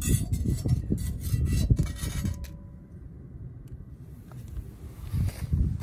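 A metal spatula scraping and rasping across the bottom of an empty cast iron Dutch oven in several rough strokes, mostly in the first two and a half seconds, then quieter. A low rumble underneath, likely wind on the microphone.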